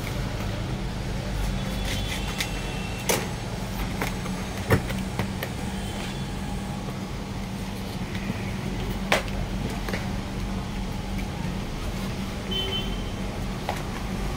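Hands pressing and smoothing bookbinding cloth onto board on a glass counter: soft handling noise with a few sharp taps, about three, five and nine seconds in, over a steady low hum.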